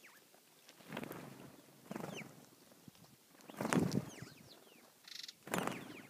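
Cape sparrows chirping in short, high, falling notes, with several bursts of wing fluttering close by as the flock lifts off, the loudest about two thirds of the way in.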